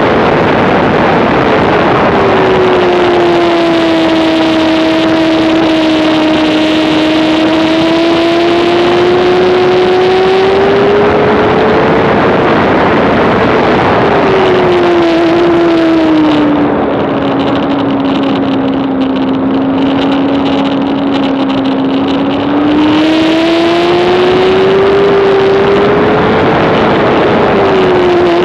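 Onboard sound of a 2007 Honda CBR600RR's inline-four racing engine at high revs, over loud wind rush. The engine note sags at the start, climbs slowly for about ten seconds, then drops again and holds lower past the middle before rising once more. The wind rush eases for several seconds while the note holds low.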